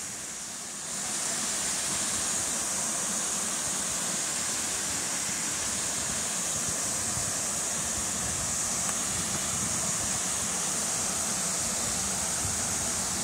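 Steady rushing hiss of a stream's waterfall cascading over rock ledges into a pool.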